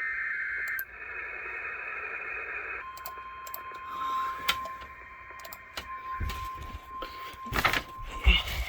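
EAS digital header data burst, a buzzy screech, cutting off about a second in, followed by a hiss. About three seconds in, a steady single-pitch alert tone starts, the NOAA Weather Radio warning alarm tone, and runs on under scattered clicks and a few knocks near the end.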